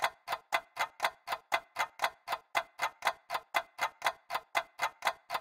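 Ticking clock sound effect, sharp, even ticks at about four a second.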